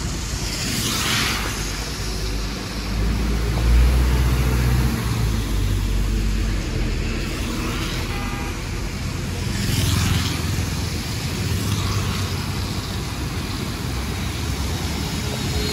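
Road traffic on a wet road: a heavy vehicle's engine rumbling low, swelling about 3 to 5 seconds in. Tyres hiss past on the wet tarmac a few times.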